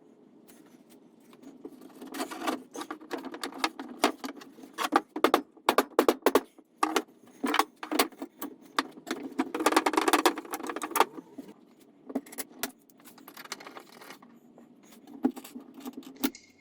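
Clicking and rattling of hard clamp parts as corner squaring clamps are set and tightened on a dowelled wooden frame, in irregular runs that are busiest around the middle. A faint, steady low hum runs underneath.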